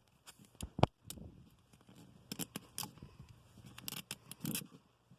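Toy packaging being handled and peeled open, heard as scattered crackles and clicks, with a sharp tap just under a second in.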